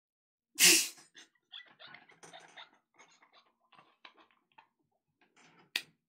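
A man laughing hard and nearly silently: a loud breathy burst of laughter about half a second in, then faint broken gasps, with a sharp click near the end.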